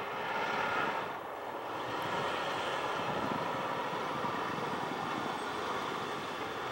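Airbus A320-232's IAE V2500 turbofan engines at approach power as the airliner descends on short final with its gear down: a steady rushing hum with a faint whine, slowly getting louder.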